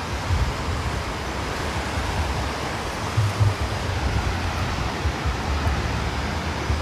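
Steady rush of ocean surf on the beach, with wind buffeting the microphone in low rumbling gusts, strongest about three seconds in.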